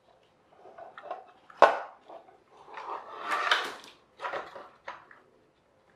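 Hard plastic toy tractor being handled and turned over, its plastic body and wheels knocking and rattling. One sharp knock comes about a second and a half in, then a longer scuffling clatter and two shorter knocks.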